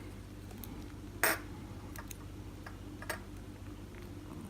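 Small metal clicks and taps from a pin-tumbler lock core and the tool working it apart: one sharper click a little over a second in, then a few fainter ticks.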